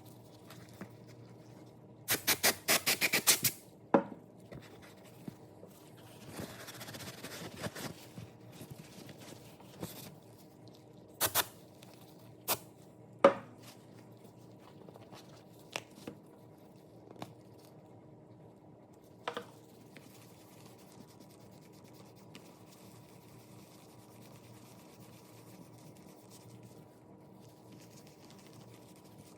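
Handling noises: a quick run of sharp clicks or taps, a few separate knocks and a couple of seconds of rubbing, then only a low steady room hum for the last third.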